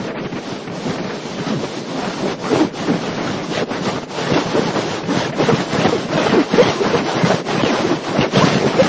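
Loud, steady rushing noise with short wavering tones that come and go, growing somewhat louder toward the end.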